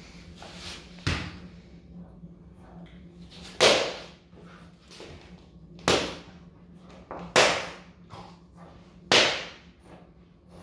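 A soft slipper smacked flat against a wooden floor: a lighter smack about a second in, then four sharp, loud smacks roughly every two seconds.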